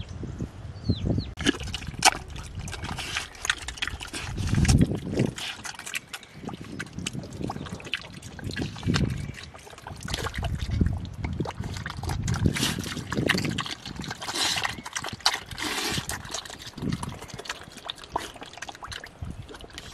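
Two piglets eating wet green mash from a trough: irregular wet slurping, smacking and chewing.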